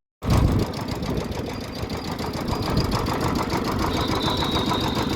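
Motorcycle engine running with a rapid, even beat, starting abruptly just after the opening.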